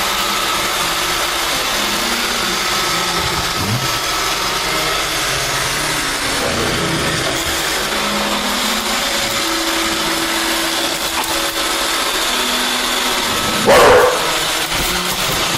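Roomba robot vacuum running with a steady whirring hiss, and a boxer gives one loud bark near the end.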